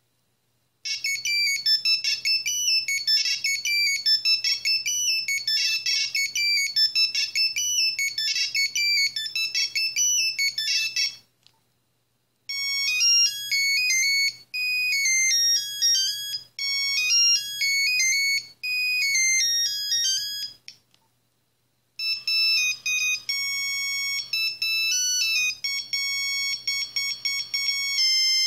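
Nokia 3310/3330 monophonic ringtones playing one after another: three different high-pitched beeping melodies, each broken off after a few seconds. A short silence of about a second comes before each new tune.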